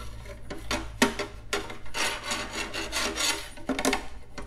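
Parts of a car soundbar kit being handled: irregular rubbing and scraping strokes with a few sharp knocks, over a faint steady low hum.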